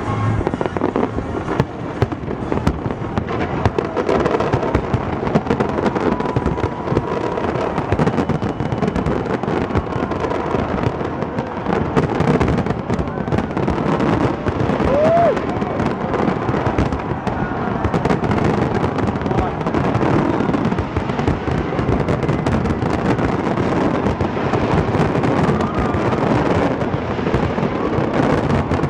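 Large aerial fireworks display in its finale: shells bursting one after another in a dense, unbroken barrage, full of crackling.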